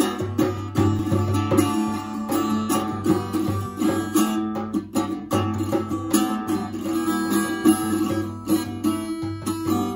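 Backpacker travel guitar played with a djembe hand drum beating time underneath: an improvised guitar-and-djembe duet.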